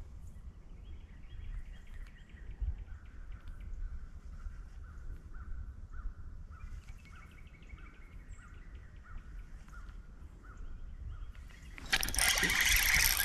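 Outdoor creekside ambience with a low wind rumble and a bird repeating a short call note about twice a second. Near the end a loud rustling sets in close to the microphone as the rod and reel are handled.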